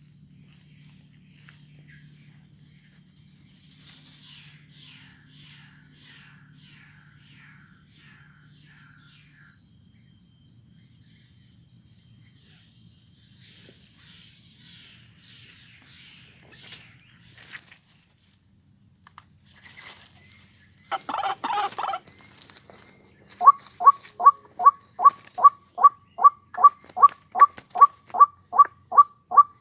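White-breasted waterhen calling. A short loud burst of calls comes about 21 seconds in, then from about 23 seconds a run of loud, evenly spaced calls, about three a second. Before that there is faint chirping from small birds over a steady high insect drone.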